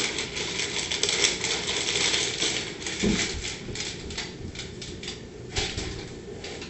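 A dog snatching a plastic-wrapped package off a kitchen counter: rapid crinkling and clicking, and a dull thump about three seconds in as it drops to the floor. After that come sparser clicks of its claws on a hardwood floor as it trots off.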